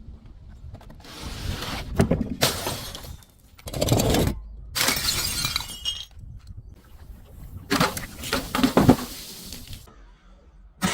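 Glass bottles breaking and being crushed: several loud bursts of shattering and crunching glass with short gaps between them, the sharpest cracks about two, four and eight and a half seconds in.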